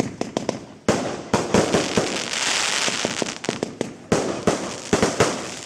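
Fireworks display: two loud bursts, one about a second in and one near four seconds, each followed by a rushing spray and many sharp crackles.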